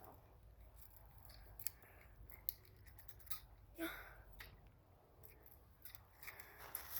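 Faint, scattered small clicks and snicks of a BB gun's mechanism being handled, with no shot fired.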